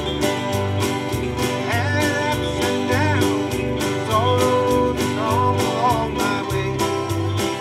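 Live country gospel band playing: acoustic guitar strumming over bass and drums on a steady beat, with a melody line that slides up and down in pitch.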